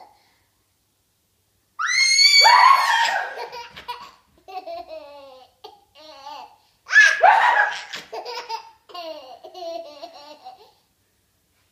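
A toddler girl's laughter: a loud, high-pitched shriek about two seconds in, then short repeated bursts of giggling, with a second loud shriek-laugh about seven seconds in followed by more giggles.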